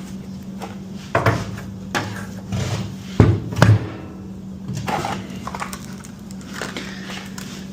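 Scattered metal knocks and clunks as a motorcycle exhaust pipe is worked up into place on a kart's tube frame, the loudest pair a little past three seconds in, over a steady low hum.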